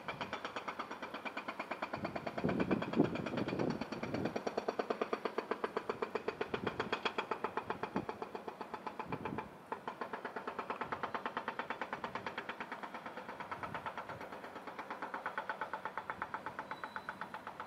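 An engine running steadily with a rapid, regular pulsing of about five beats a second.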